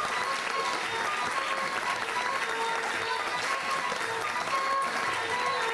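Audience clapping over folk dance music for a dabke line dance, the melody carried in steady held notes.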